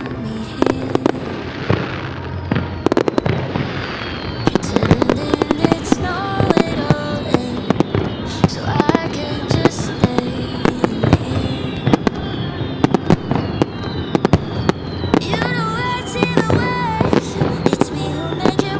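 Fireworks bursting and crackling, many sharp reports in quick, irregular succession, heard together with a background song with a melody.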